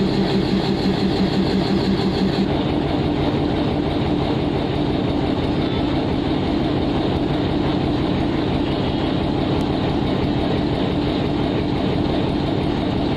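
Diesel locomotive's engine running under power as the train pulls slowly away, a loud steady drone. A rapid pulsing in it stops about two and a half seconds in.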